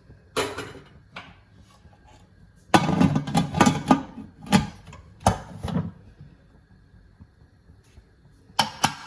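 Cookware being handled on a stove, metal knocking and clattering. There is one knock just after the start, a rapid cluster of knocks about three seconds in, a few single knocks after that, and two more near the end.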